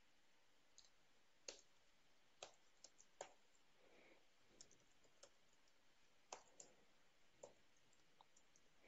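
Faint computer keyboard keystrokes and clicks, a dozen or so irregular taps spread over several seconds, over a low hiss.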